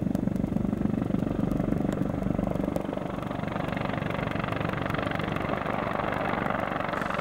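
CH-53 heavy-lift helicopter flying low past, its main rotor beating in a steady rapid thud over the turbine noise.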